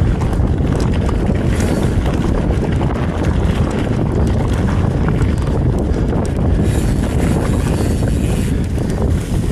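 Wind buffeting the action camera's microphone as a Commencal Meta TR29 mountain bike rolls fast over a dry dirt trail, with tyre crunch and many small rattles and clicks from the bike over bumps. A brighter hiss comes up about two-thirds of the way through.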